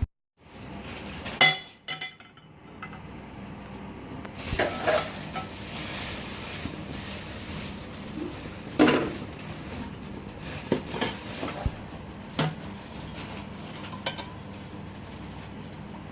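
A metal spoon stirring in a cooking pot, clinking and scraping against it every few seconds, over a steady sizzle of frying food.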